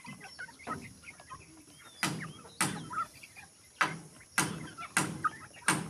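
A flock of RMG heritage chickens clucking softly as they feed, with about seven sharp taps scattered through.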